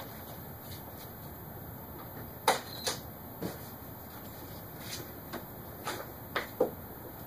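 A run of about eight short, sharp clicks and knocks, the loudest about two and a half seconds in: the driver's door latch and door of a 1974 Porsche 911 being worked as someone opens it and gets in.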